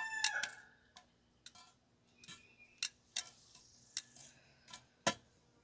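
Light, irregular clicks of metal tongs on charcoal briquettes and a cast iron Dutch oven lid, about nine scattered taps over a few seconds. A rooster's crow trails off at the very start.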